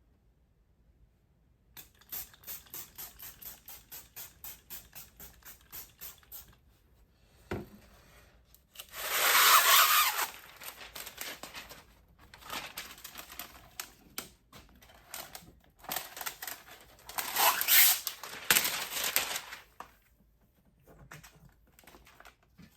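Trigger spray bottle of soapy water squeezed in quick repeated squirts, about four a second, then two louder, longer bursts of hissing, rustling noise as the window film is wetted and handled.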